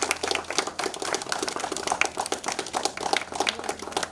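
A small crowd clapping: a dense, irregular patter of handclaps.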